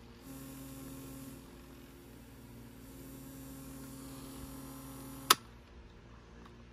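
Philips AQ6492 personal cassette player in play mode giving only a steady low hum and no music, because the tape is not turning, a fault the owner puts down to a loose drive belt. About five seconds in, a button gives a sharp click and the hum stops.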